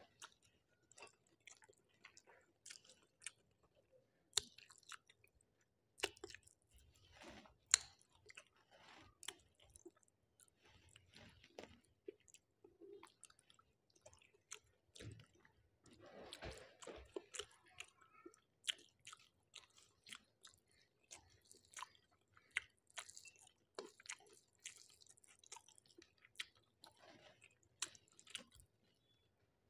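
Faint chewing and mouth sounds of a person eating rice with curries, a scatter of small wet smacks and clicks.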